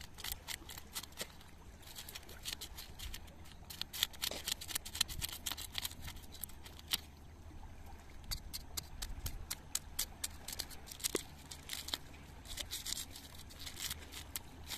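A knife blade scraping scales off small fish: clusters of quick, short scraping clicks that come and go, over a low steady rumble.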